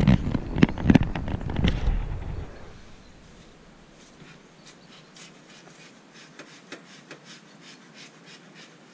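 Camera handling noise close to the microphone: rubbing and rumbling with several knocks for about two and a half seconds as the camera is set in place, then faint scattered clicks and rustles.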